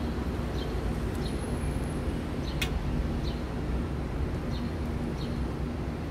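Steady city background hum of distant traffic, with short high bird chirps every second or so and a single sharp click about two and a half seconds in.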